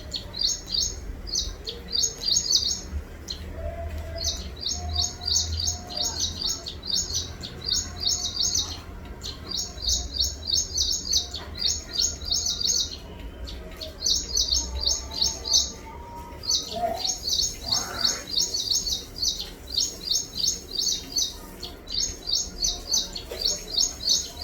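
Small birds chirping: quick, high-pitched chirps strung into bursts of about a second, repeated over and over with short pauses, over a low background rumble.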